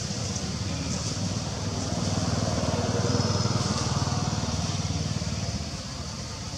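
A motor engine running, growing louder about two seconds in and fading away near the end.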